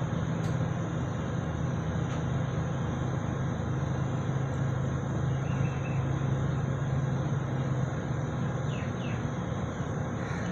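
Jet engines of a Boeing 777 running as the airliner rolls along the runway: a steady low rumble with hiss, the low drone easing a little about eight seconds in.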